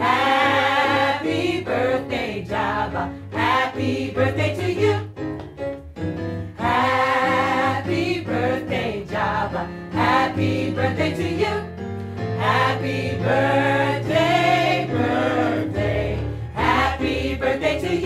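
Small mixed gospel choir of men and women singing in harmony over a low held bass line, in phrases with short breaks between them.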